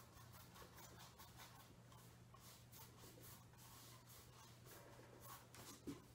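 Faint, repeated strokes of a paintbrush dabbing and brushing acrylic paint onto a stretched canvas, with a low steady hum underneath and a soft knock just before the end.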